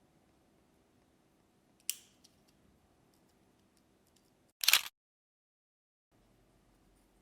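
Two sharp mechanical clicks over a faint steady low hum: a light one about two seconds in, and a louder, slightly longer snap a little before five seconds, followed by dead silence.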